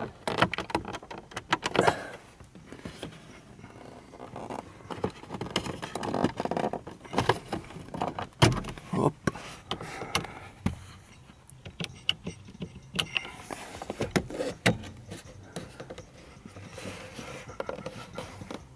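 Plastic clicking, knocking and scraping as the VW Golf 5 instrument cluster and its dashboard trim are worked loose and pulled out by hand, in irregular bursts of small clicks.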